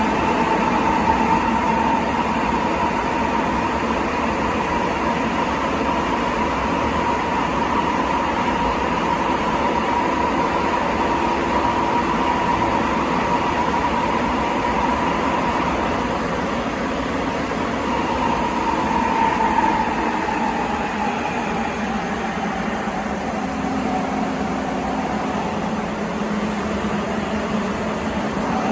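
Sapporo Municipal Subway Tozai Line 8000-series rubber-tyred train running through the tunnel, heard from inside the passenger car: a steady rumbling ride noise under a high hum. The hum holds steady, then drops slightly in pitch in the last third.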